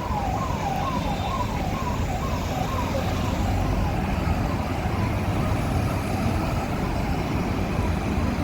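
A vehicle siren sounding about two falling sweeps a second and fading out about four seconds in, over the steady low rumble of vehicle engines and road traffic.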